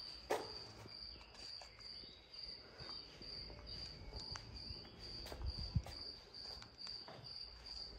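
A cricket chirping, a faint high pulsed note repeating about twice a second, with scattered faint footsteps on paving.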